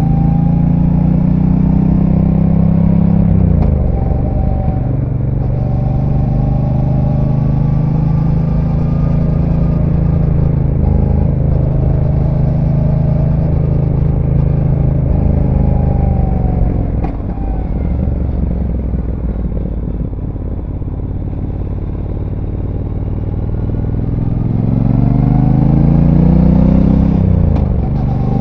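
Brixton Cromwell 1200's parallel-twin engine through its stock exhaust, heard from the saddle while riding through curves. The note drops sharply with quick gear changes a few seconds in and near the end. Around the middle it falls away and goes quieter as the bike slows, then rises and grows louder again as it accelerates.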